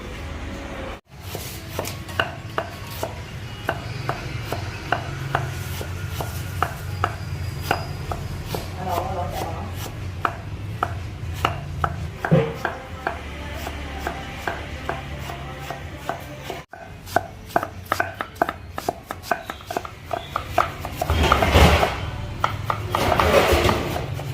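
A kitchen knife chopping food on a cutting board in a long run of sharp, quick strokes, a few a second, getting faster in the latter part. Near the end there is a rougher scraping sound.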